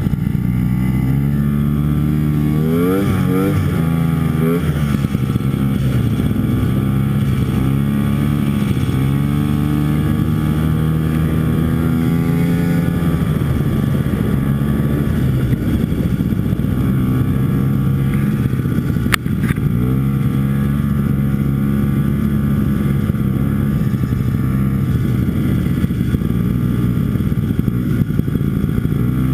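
Vintage Ski-Doo snowmobile's two-stroke engine running under the rider, its pitch rising and falling with the throttle, with a quick series of revs a few seconds in. One sharp click about two-thirds of the way through.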